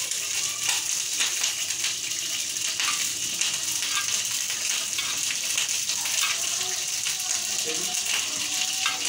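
A steady hiss, with faint clicks and scrapes of a metal spoon scooping fruit cocktail out of a tin can.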